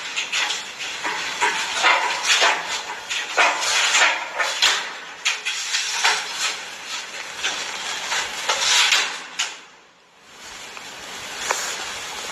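Cat claws scratching and scrabbling at a window frame, a fast irregular run of scratchy strokes that dies down about ten seconds in.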